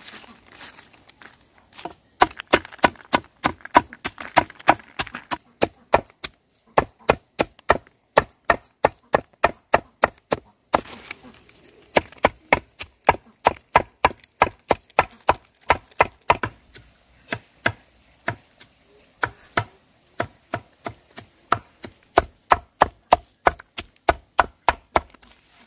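A blade chopping rapidly, about three to four sharp strokes a second, in runs broken by short pauses.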